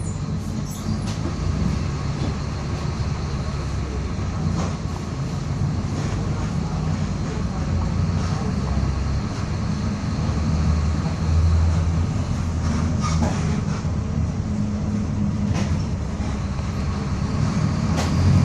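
Mercedes-Benz OF-1722M city bus on the move: its diesel engine runs with a steady low drone under a faint steady whine from the differential, which is growling from wear. Occasional knocks and rattles come from the body.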